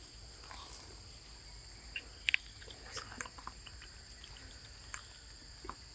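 Soft wet clicks and smacks of a baby macaque eating ripe mango, the loudest pair about two seconds in, over a steady high chirring of insects.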